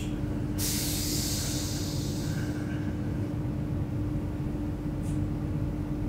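Hamburg U-Bahn DT4 metro train standing at a platform, heard from inside the car: a steady low hum with one held tone from its running equipment. About half a second in, a sudden hiss of air starts, lasting about two seconds before it fades.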